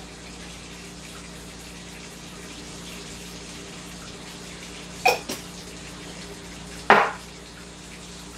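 Kitchen clatter over a steady low hum: a quick double knock of hard kitchenware about five seconds in, and a single louder knock about two seconds later, as dishes or utensils are handled at a metal mixing bowl.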